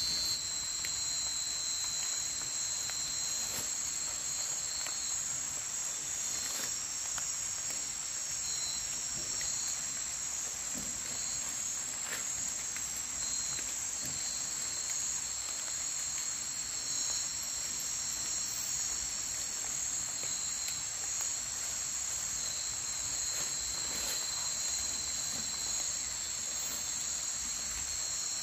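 Chorus of night insects: several steady high-pitched trilling tones, one higher and one lower, going on without a break, with a few faint ticks.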